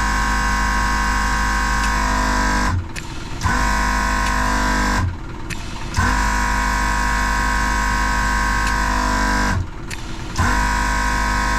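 Portable air compressor running as it inflates a repaired truck tyre to seat the beads: a steady motor hum whose pitch sags slightly before it drops out briefly three times and comes back.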